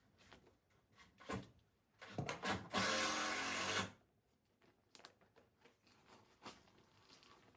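Electric drill running in one loud burst of about a second and a half, with scattered knocks and clicks of work before and after.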